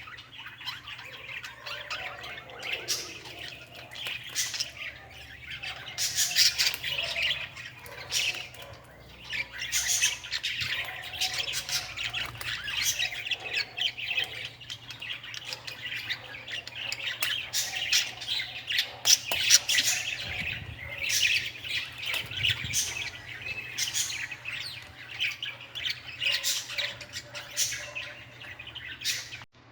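Small birds chirping and squawking continuously, a dense chatter of short, high calls with frequent sharp accents.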